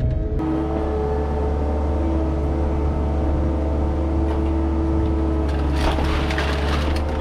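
Skid steer engine running steadily at a constant speed. A short burst of crackling, clattering noise comes about six seconds in.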